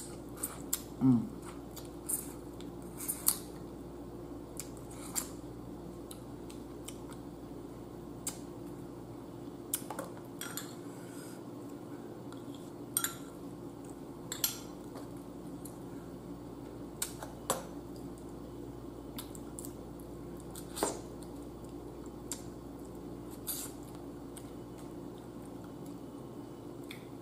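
Scattered sharp clicks and clinks of eating boiled blue crabs by hand: a metal spoon knocking in a ceramic dipping bowl and crab shell being cracked and picked apart, over a faint steady hum. A brief low falling sound about a second in is the loudest moment.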